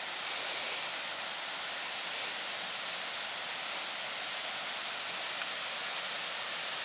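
Steady rush of flowing water, an even hiss with no breaks, from a stream swollen by three days of rain.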